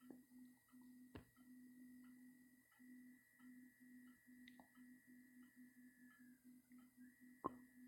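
Near silence: a faint steady high-pitched tone and a low hum that pulses about three times a second, with a brief click about a second in and a louder click near the end.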